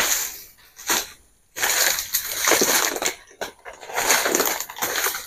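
Leaves and undergrowth rustling and crunching in several bursts as someone moves through dense brush and handles the vegetation.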